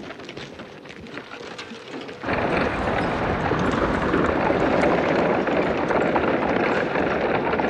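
Horses' hooves and a horse-drawn wagon clattering over rough ground. It is a dense, steady din that starts suddenly about two seconds in, after a quieter stretch of light crackling.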